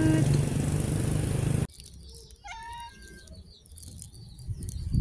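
Steady background noise cuts off suddenly a little under two seconds in. A cat then meows once, a short call that bends in pitch, followed by a few faint high bird chirps.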